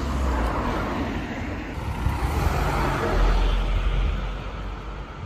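Road traffic: a vehicle passing along the street, its rushing noise and low rumble swelling to a peak about three seconds in, then fading.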